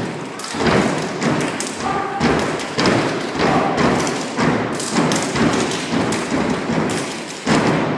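Fraternity step routine: several steppers stomping in unison on a raised stage platform, with hand claps and body slaps, making a fast, continuous run of sharp thuds.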